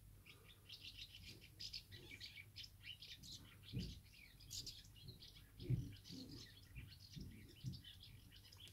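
Faint birdsong: many short, high chirps and tweets from several birds, with a few soft low thumps about halfway through.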